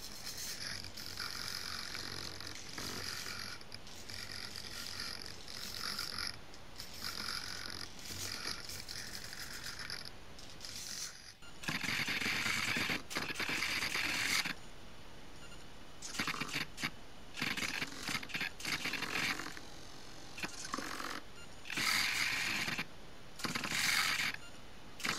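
Small hobby servos turning a model bomber's 3D-printed gun turret, whirring and buzzing in short bursts with brief pauses between them. About halfway through comes a longer, louder stretch of movement.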